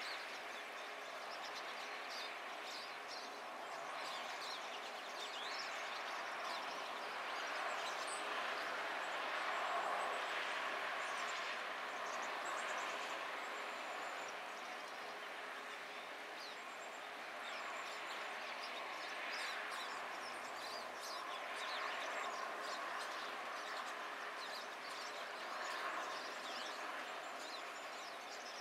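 Steady hiss of bridge traffic, swelling and easing every few seconds, with many faint, short, high-pitched chirps and ticks over it.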